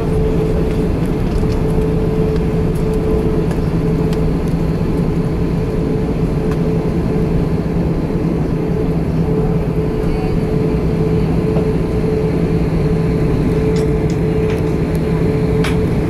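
Steady cabin drone inside an Airbus A340-600 on the ground with its four Rolls-Royce Trent 500 engines running at low power: an even rushing noise with a steady low hum and a higher steady tone above it.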